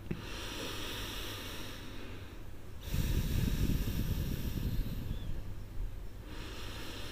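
A person breathing slowly and deeply, belly breathing. There is one long hissing breath, a short pause, then a second, louder and fuller breath starting about three seconds in.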